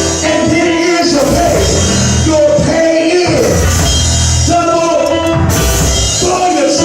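Live church band music with a voice singing over bass and cymbals.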